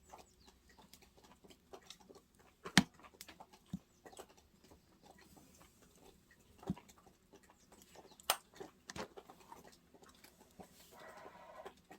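Wood fire crackling, with irregular sharp pops; the loudest come about three seconds in and about eight seconds in.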